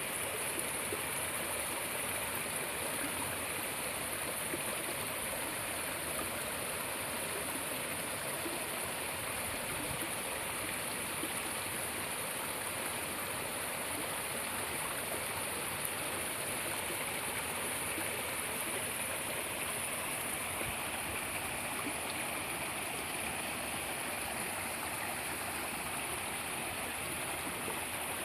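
Mountain stream flowing steadily: a continuous, even rush of water over rocks.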